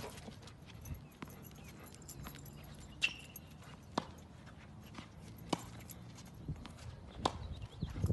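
Tennis ball being played in a rally on an outdoor hard court: sharp pops of racket strikes and ball bounces, one every second or two.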